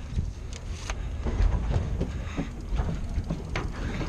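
Deck noise on a fishing boat: an uneven low rumble with scattered light knocks and clicks.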